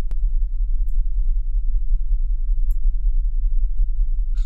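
Steady low mains-type hum underlying the recording, with a sharp click just after the start and a few faint short ticks.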